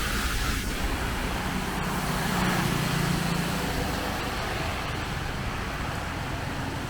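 Road traffic on a wet street: a passing vehicle's engine hum swells a couple of seconds in and fades, over a steady hiss.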